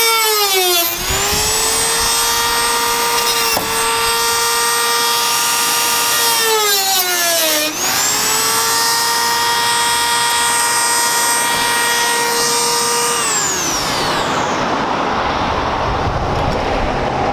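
Dremel rotary tool with a cut-off disc cutting into a carbon fibre hood: a high, steady whine whose pitch sags twice as the disc is pressed into the material and then recovers. The tool winds down about three-quarters of the way through, leaving traffic noise.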